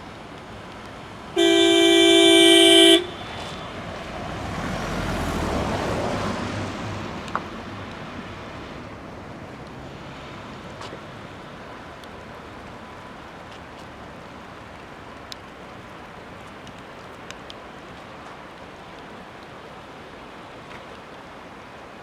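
A vehicle horn sounds once, a steady blast lasting about a second and a half. A vehicle then passes, its noise swelling and fading over a few seconds.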